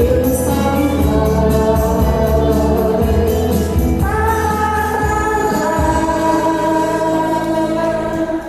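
A song sung live with accompaniment. The singing moves between notes at first, then holds a long note from about halfway through, and the music falls away near the end.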